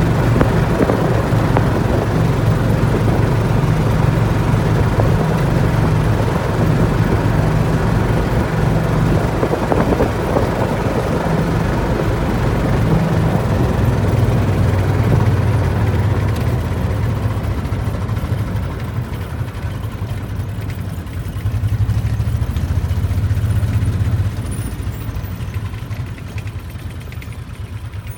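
Small vehicle engine running steadily while driving slowly, its pitch shifting a little with speed, with a hiss of wind and road noise; it eases off and gets quieter near the end.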